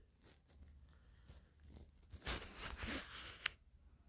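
Faint scattered rustling and crinkling noises, with a short sharp click about three and a half seconds in.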